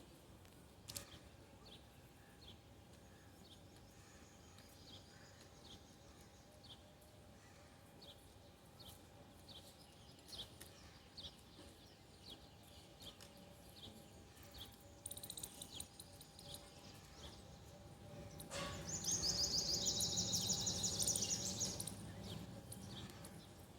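Birds chirping outdoors, short high calls repeated through the stretch over a faint steady hum. Near the end comes a much louder rapid trill that lasts about three seconds.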